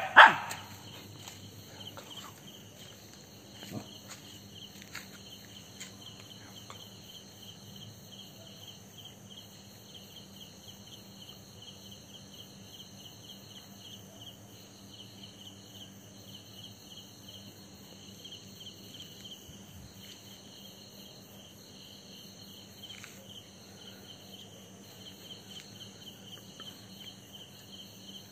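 Insects, such as crickets, chirping in a steady, rapidly pulsing chorus. A short loud noise comes right at the start.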